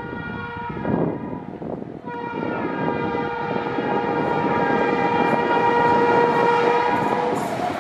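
Electric locomotive horn on an approaching express train: a blast that ends about a second in, then one long blast from about two seconds in until near the end. Under the horn, the rumble of the wheels on the rails grows steadily louder as the train comes closer at speed.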